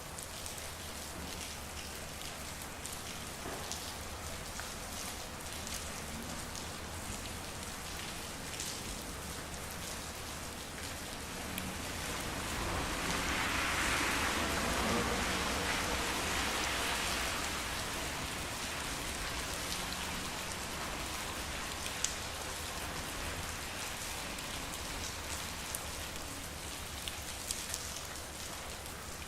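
Rain falling steadily on a street, with single drops ticking sharply close by. About halfway through, a louder rushing swell rises and fades away over several seconds.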